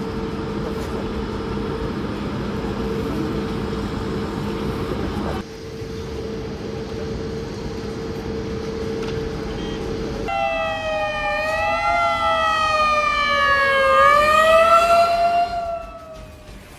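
A steady hum over background noise, then about ten seconds in an emergency vehicle's siren starts wailing, sliding up and down in pitch and getting louder before it fades near the end.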